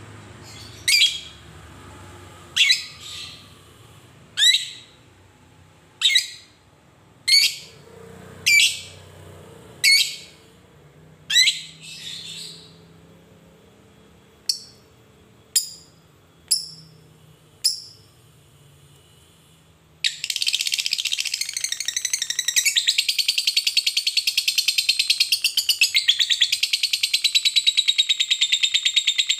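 Fischer's lovebird giving sharp single chirps about every second and a half, then four shorter ones, and about twenty seconds in breaking into a loud, continuous rapid chatter: the long 'ngekek' trill that fighter lovebirds are prized for, after the ticking calls that lead into it.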